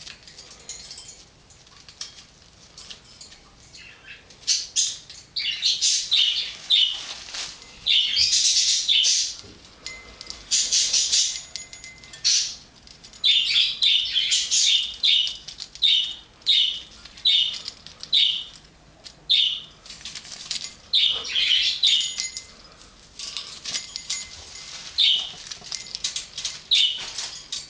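Pet sun conure flapping its wings in its cage, in repeated rushing bursts about a second apart from about four seconds in, with a few short chirps among them.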